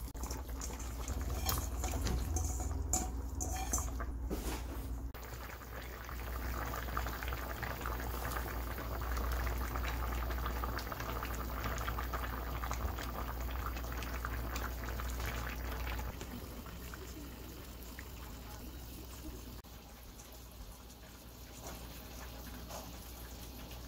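Hot water poured from a kettle into a pan of stew for the first five seconds or so, then the stew bubbling as it simmers. The bubbling grows quieter a little past the middle.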